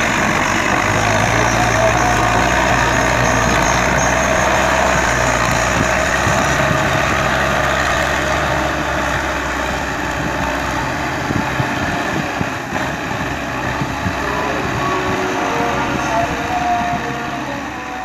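A farm tractor's diesel engine running steadily under load as it drags a tillage implement through deep mud, growing a little fainter over the last few seconds as the tractor moves away.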